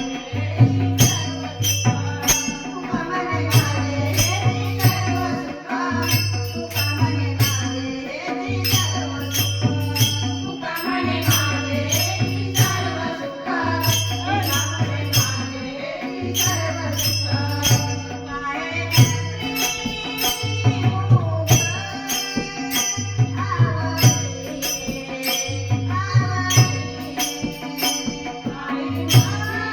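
Marathi devotional bhajan music: a mridang drum keeps a steady low beat under frequent sharp jingling percussion strikes, with a sung or played melody wavering above.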